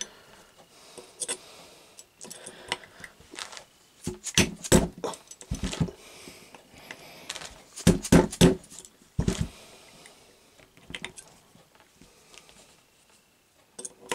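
Irregular sharp metallic clicks and taps, some in small clusters, from a steel pin punch worked against a Handi Rifle's receiver to drive out the extractor pin.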